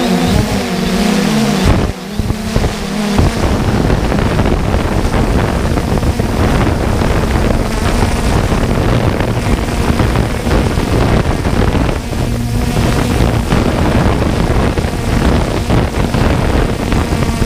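Steady rushing noise of a 3DR Solo quadcopter's propellers and motors in flight, with wind buffeting the camera microphone and a faint steady hum underneath.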